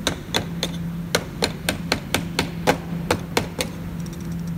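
A metal tool repeatedly striking the locking ring of a fuel pump assembly on a plastic fuel tank to turn it: about a dozen sharp metallic knocks that stop about three and a half seconds in. A steady low hum runs underneath.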